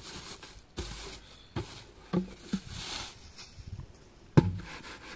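Thin plastic wrapping rustling and crinkling in bursts as it is pulled off an empty 20-litre plastic water can, with a few light knocks on the can. A single sharp knock from the can about four seconds in.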